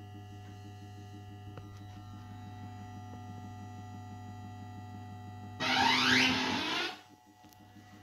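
Bell Fruit Cash Explosion fruit machine humming steadily. About five and a half seconds in, its speaker plays a loud electronic sound effect with rising sweeps, lasting just over a second. After that the hum drops away.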